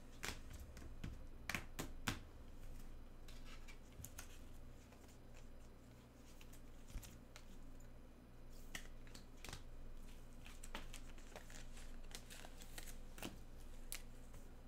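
Trading cards being handled and sorted by hand: faint, irregular clicks and light rustles, over a low steady hum.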